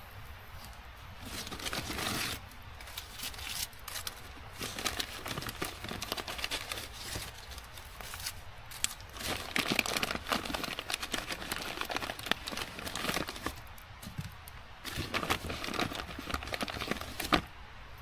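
Dry plant material being handled, rustling and crackling irregularly, with many small sharp snaps and clicks.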